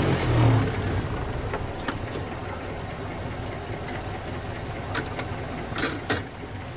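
Engine of a 1931 bus running as it pulls away, louder for the first half second and then a steady low rumble, heard from inside the cab. A few sharp clicks or rattles come about five and six seconds in.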